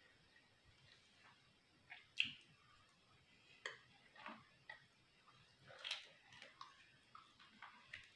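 Faint crisp crackles and clicks of a fried papad (poppadom) being broken by hand and bitten and chewed, coming as scattered short snaps, the sharpest a little over two seconds in.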